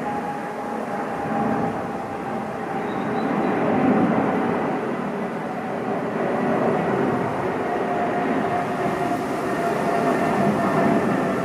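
Boeing 777-200's twin turbofan engines at climb thrust just after takeoff: a steady rumble with a whining tone that slowly falls in pitch as the jet moves away.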